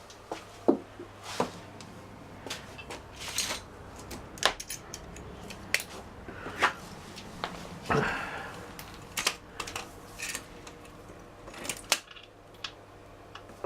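Scattered clicks, taps and light metallic knocks of hand tools and wheel parts being handled, over a faint steady low hum.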